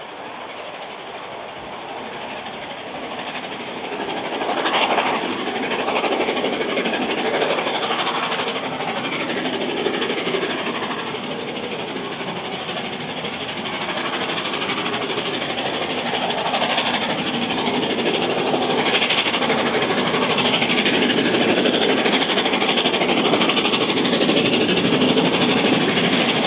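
LNER Peppercorn A1 three-cylinder Pacific steam locomotive No. 60163 Tornado working hard up a steep climb with a 13-coach train, growing steadily louder as it approaches, with the coaches' wheels running over the rail joints.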